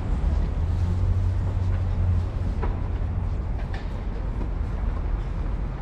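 Steady low rumble of outdoor city street noise, heavier for about the first two seconds.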